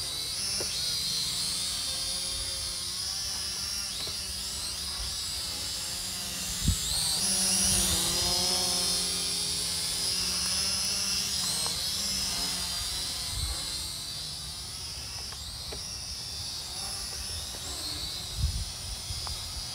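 KAPTUR GPS II quadcopter's propellers whining, the pitch gliding up and down as the motors speed up and slow down, over rough low wind rumble. A sharp thump comes about 7 s in, and another near the end.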